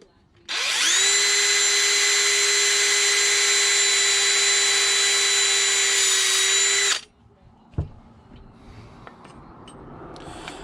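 Electric drill spinning up and running at a steady speed for about six seconds as it drills a screw hole for a camper shock bracket, then stopping abruptly. A single knock follows shortly after.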